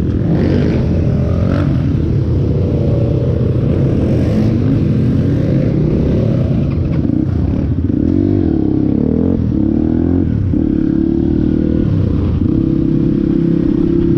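Motorcycle engine running under way, revving up and down in pitch about halfway through, then holding a steadier pitch near the end.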